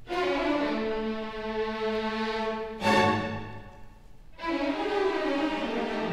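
String orchestra of violins, cellos and double bass playing sustained bowed chords, with a sharp accented chord about three seconds in, a brief quiet moment after it, then a new chord.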